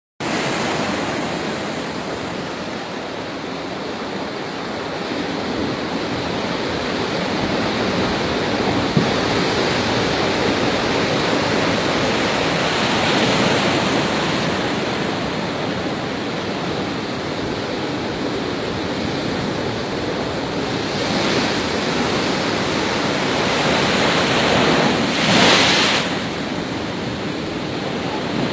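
Heavy rain pouring down in a strong wind: a steady rushing noise that swells with gusts several times, most strongly a little before the end.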